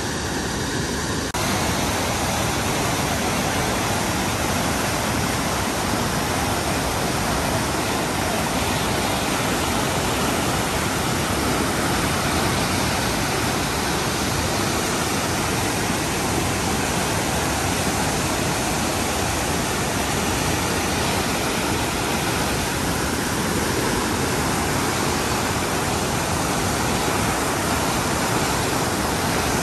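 Fast glacial river rapids rushing over rocks: a loud, steady wash of whitewater, turning fuller and a little louder about a second in.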